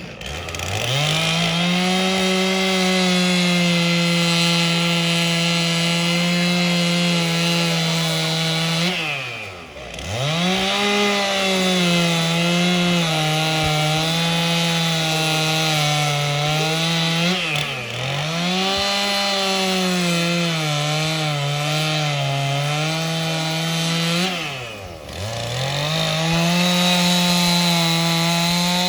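Chainsaw cutting into a block of wood while carving, run at high throttle. Its engine note sags nearly to idle and climbs back three times: about ten seconds in, briefly past halfway, and again near the end.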